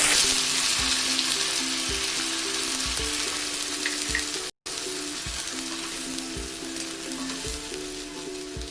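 Onion paste sizzling and frying in hot oil in a kadhai, loudest at the start and slowly dying down, with background music throughout. The sound cuts out for a moment about halfway through.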